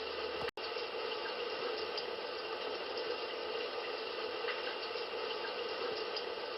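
Steady running-water sound from the Foryond wake-up light alarm clock, one of its built-in natural sounds, playing through its small speaker. It cuts out for an instant about half a second in.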